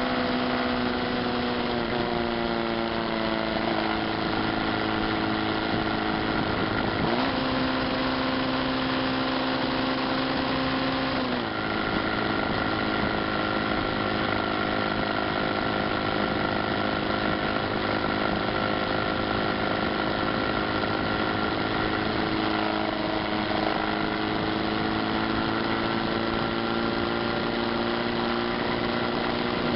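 Yamaha Fazer motorcycle engine running under way, heard from a camera mounted on the bike, with a steady engine note over wind and road noise. The pitch dips a few times, clearly about two seconds in and again about eleven seconds in, then holds steady.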